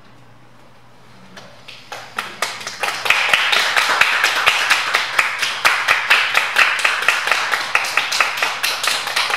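A small audience clapping by hand: a few scattered claps start about a second in and build to steady applause within a couple of seconds.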